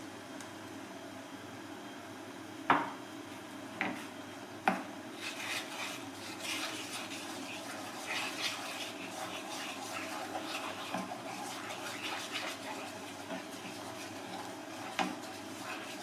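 Sauce simmering in a frying pan, with three sharp knocks against the pan a few seconds in, then a wooden spatula stirring and scraping as brown sugar is worked into the sauce, and one more knock near the end.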